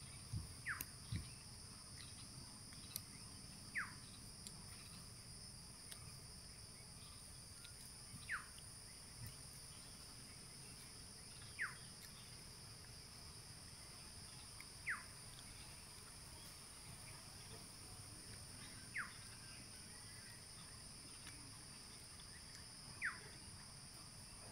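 A bird repeating a single short descending whistle every three to four seconds, over a steady high-pitched insect drone.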